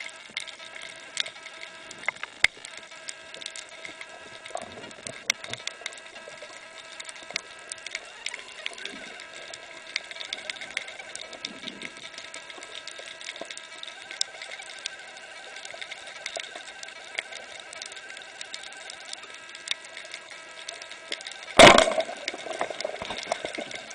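Underwater crackle of many small clicks over a faint steady hum; about three seconds before the end a single loud, sharp bang as a speargun fires, followed by a short ringing.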